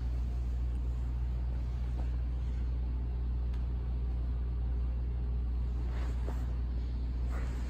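Steady low hum with a few faint soft taps and rustles from bodies and gis shifting on a grappling mat.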